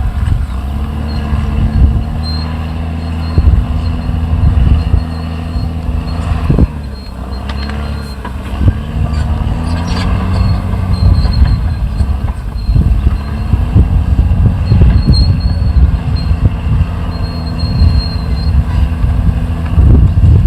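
Caterpillar D6R XL bulldozer working, its diesel engine rising and falling in pitch under load, with steel tracks clanking and a thin high squeal coming and going.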